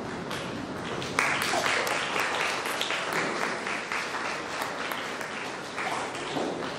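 Audience applauding, swelling suddenly about a second in and rising again near the end.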